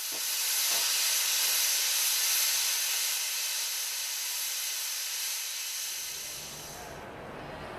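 Steam locomotive venting steam: a loud, steady hiss that eases off slightly and stops suddenly about seven seconds in. A low rumble comes in near the end.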